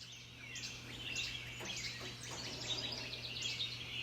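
Several songbirds singing at once in a dawn chorus: many short chirps and trills overlapping without a break, over a steady low hum.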